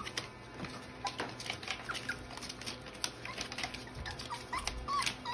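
Young puppies giving several short, high squeaks and whimpers, with faint ticking and pattering as they nose about a steel food pan.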